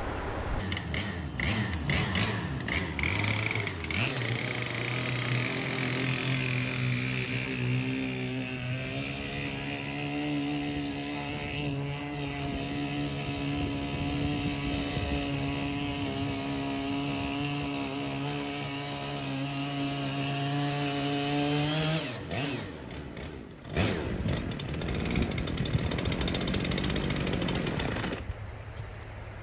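Stihl 088 chainsaw's two-stroke engine running at steady high revs while it drives a surface-drive boat propeller. About two-thirds of the way through, the steady engine note breaks off and the sound turns rough and uneven.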